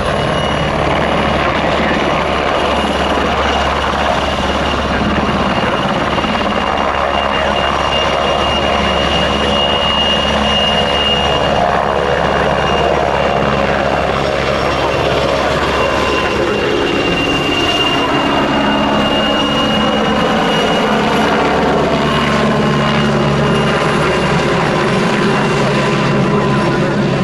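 PZL-Świdnik W-3A Sokół twin-turboshaft helicopter flying close by, loud and steady, its rotors and turbines running with a thin high whine. In the second half its pitch bends as it moves past.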